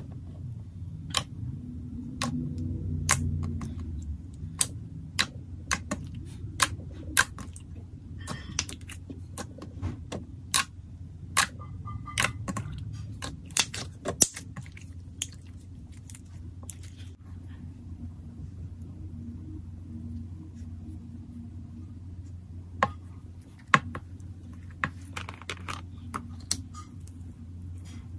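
Thick blue slime being poked, pressed and squeezed by hand, giving off irregular sharp clicks and pops, sometimes in quick runs, over a low steady hum.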